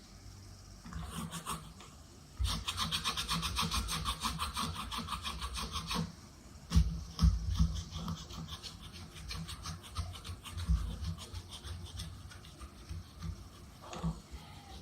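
Cotton rubbing over a table-fan blade as it is wiped clean: a burst of rapid back-and-forth strokes, about eight a second, then a few louder knocks as the blade is handled, then slower, quieter wiping.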